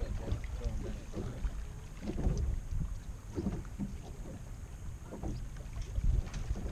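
Wind buffeting the microphone in uneven gusts, with small waves lapping against the hull of a bass boat drifting on choppy water.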